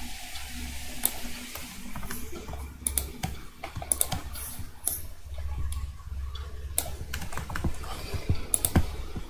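Irregular clicks from a computer mouse and keyboard, about one or two a second, over a low hum.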